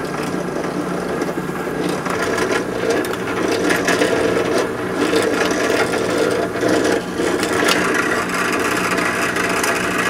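Benchtop drill press running, its bit boring out the centre hole of an ABS plastic wheel drum lubricated with WD-40: the rough cutting sound of the bit in plastic over the steady hum of the press's motor.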